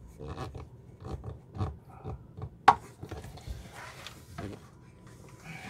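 Irregular knocks, scrapes and rubbing of hand work on an RV toilet's plastic foot-pedal area, with one sharp click a little under three seconds in.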